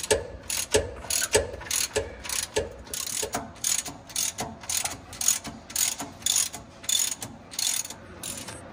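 Ratchet wrench clicking in quick repeated strokes, about two a second, turning a bolt on the alternator mount.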